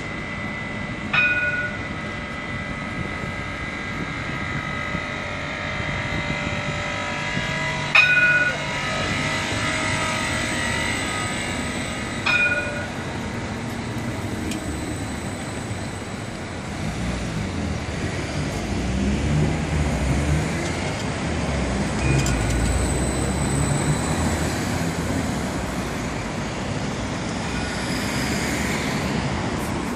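A CAF Urbos tram sounding its warning bell three times, each a short two-note ding, about a second in, about eight seconds in and about twelve seconds in. After that comes the low rumble of the tram running along street rails, swelling through the middle of the second half.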